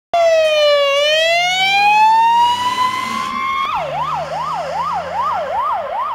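Electronic siren that cuts in abruptly with a long wail, dipping and then slowly climbing. About two-thirds of the way through it switches to a fast yelp, sweeping up and down about two and a half times a second.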